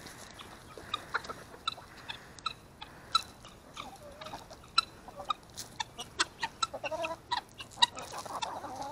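Flock of hens clucking softly while feeding on scattered grain, with many quick ticks of beaks pecking at the ground and short clucks scattered throughout.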